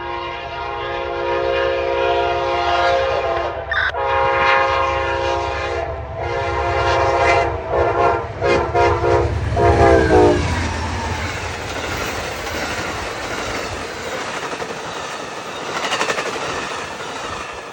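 Amtrak passenger locomotive AMTK 160 sounding its multi-chime air horn: two long blasts, then a string of shorter ones, over the rumble of its diesel engine. After about ten seconds the horn stops and the train rushes past with a steady roar of wheels on rail and some clickety-clack from the passing cars.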